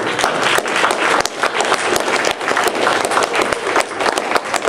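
A roomful of people applauding: many hands clapping in a dense, steady patter.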